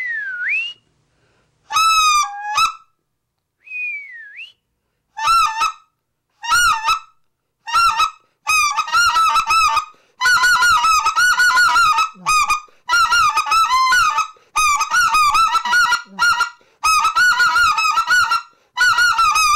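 RedBone goose call blown with clear air, whistled with no voice in it, imitating geese. First come two single whistled notes that swoop down and back up, then a clipped high-to-low honk. Then run after run of quick two-note honks, each breaking from high to low, growing into long rapid strings with short breaths between.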